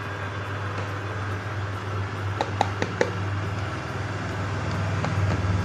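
A few light taps, about two and a half to three seconds in, as flour is shaken out of an upturned plastic measuring cup into a mixing bowl, over a steady low hum.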